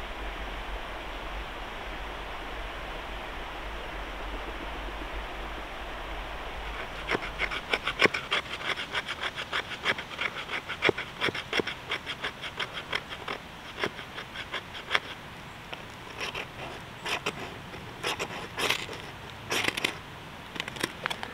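Steel knife scraping a stick of resin-rich fatwood in quick, even strokes, about four or five a second, to make fine tinder shavings. In the last few seconds come a handful of harder, separate scrapes as a ferro rod (firesteel) is struck with the knife to throw sparks that light the tinder. For the first several seconds there is only a steady background hiss.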